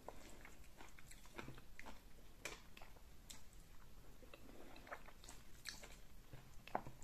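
Close-miked chewing of fufu and egusi soup eaten by hand: faint, irregular mouth clicks and smacks.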